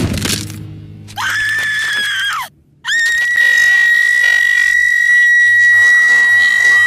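A loud crash at the start, then a cartoon girl's high-pitched screams: a short held scream about a second in, and after a brief break a long, steady scream that does not let up.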